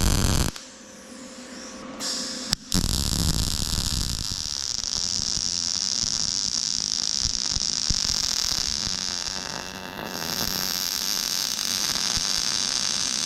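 Wire-feed welder arc crackling and hissing as a weld bead is run, joining plate steel to the thin metal of a seat mount. The arc stops about half a second in, picks up again briefly around two seconds, then runs steadily, with a short break near ten seconds.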